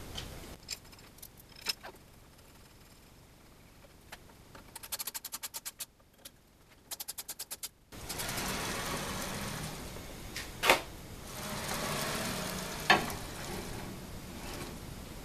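Ratcheting screwdriver clicking in two quick runs as screws are driven into an aluminium bar, then, over a faint hiss, two sharp knocks about two seconds apart.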